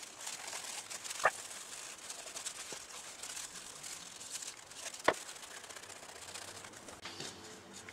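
Quiet handling of a turkey pot call whose glass lid has just been glued in, with two sharp clicks about a second in and about five seconds in.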